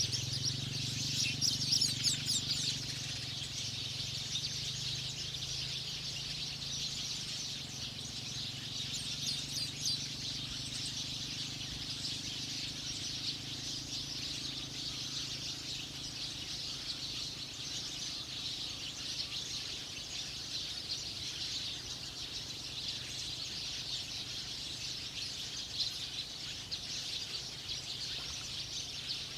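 Small birds chirping and twittering over a steady, high-pitched outdoor din, with a faint low hum underneath.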